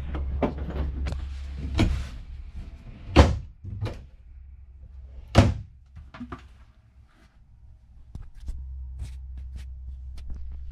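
Doors and cabinet doors inside an RV being opened and shut, with many small clicks and knocks and two loud slams, about three and five and a half seconds in. A steady low hum runs underneath and drops away for a couple of seconds midway.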